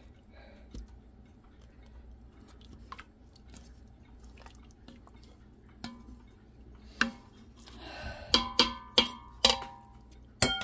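A utensil knocking and scraping in a stainless-steel Instant Pot inner pot holding a thick stew: about six sharp knocks in the last few seconds, each leaving a short metallic ring. Before that there is only a faint low background.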